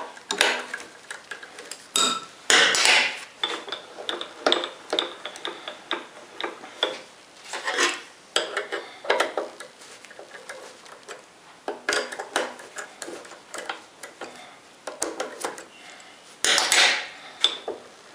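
Steel saddle plate of a homemade lathe slid by hand along its steel slide rails: irregular metallic scraping and clattering strokes, loudest about three seconds in and near the end. The slide is being worked over the stretch where it starts to bind.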